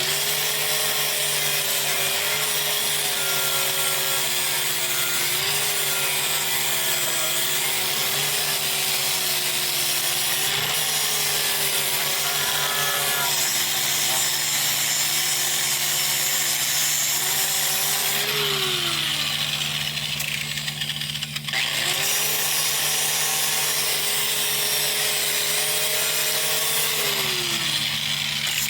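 Angle grinder grinding soot and crud off a steel truck frame. Its motor whine sags and recovers under load, winds down about two-thirds of the way through, starts up again a few seconds later, and winds down near the end.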